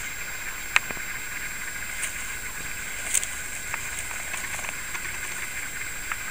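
Grass and dry leaves rustling lightly as a hand moves through them, with a few sharp ticks (the loudest about a second in), over a steady hiss.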